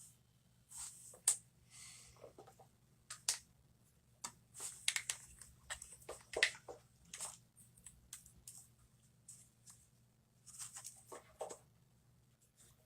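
Light clicks, taps and rustles of hands handling a disassembled iPhone and its loose screen panel, coming in irregular clusters with a few sharper clicks.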